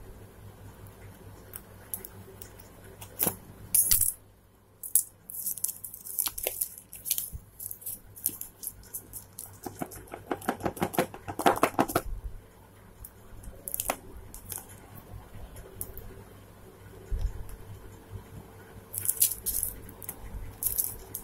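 Hands handling a phone's cardboard box and working at its plastic shrink-wrap: scattered rustles, crackles and taps, with a dense two-second run of crackling about ten seconds in and more crinkling near the end.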